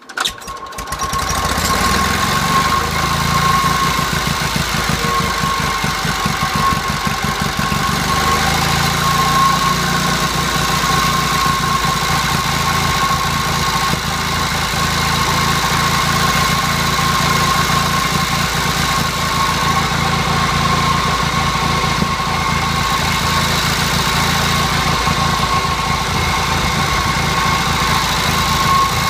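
J.A.P. model 55 generator set's engine starting, picking up speed over the first couple of seconds, then running steadily with an even, rapid firing beat and a steady high whine.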